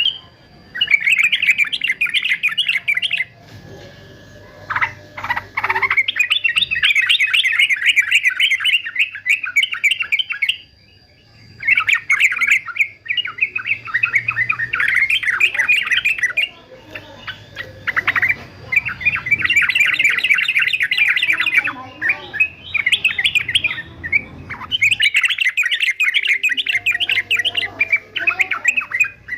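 Male yellow-vented bulbul (trucukan) singing in rapid, chattering bouts of a few seconds each, with short pauses between them.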